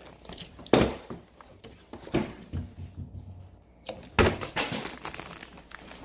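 Several dull thunks of a partly filled plastic water bottle being flipped and knocking down onto a hard surface. The loudest comes about a second in, with others about two and four seconds in.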